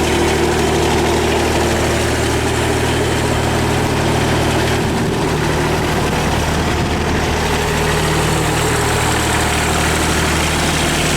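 22 hp Kubota diesel engine of a Grasshopper 722D riding mower idling steadily while warm.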